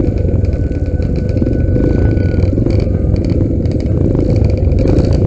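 Motorcycle engine running steadily and loud, with scattered rattling knocks over it.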